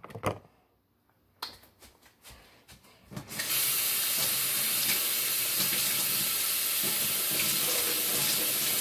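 A kitchen faucet runs steadily for about six seconds, starting a little over three seconds in, as ice cube trays are filled with water. A few light knocks of the plastic trays being handled come before it.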